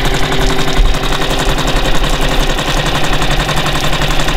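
Mercury 6 hp four-stroke single-cylinder outboard engine running with a rapid, even popping exhaust beat.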